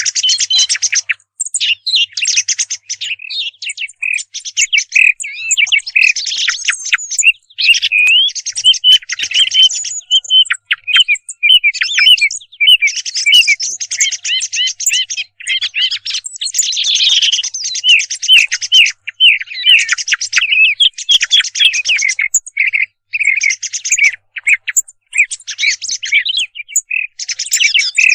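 Thrush song and calls played as a hunting lure recording: dense runs of quick, high chirps and trills broken by short pauses.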